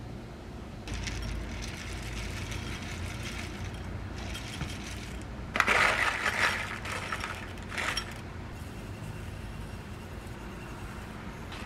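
Dry food poured from a paper bag into a ceramic bowl: a rustle of the bag, then a louder patter and rattle about halfway through as cacao nibs fall onto puffed cereal, with a short second pour just after.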